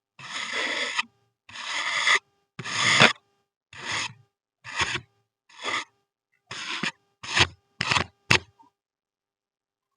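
A blade slicing through kinetic sand, making about ten separate gritty scraping strokes that grow shorter and quicker toward the end.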